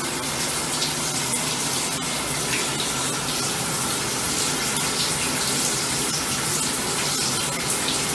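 Shower running, water spraying steadily onto a tiled shower floor.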